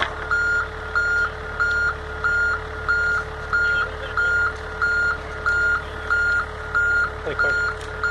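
A compact wheel loader's back-up alarm beeps steadily on one pitch, a little under two beeps a second, over the low hum of its running diesel engine.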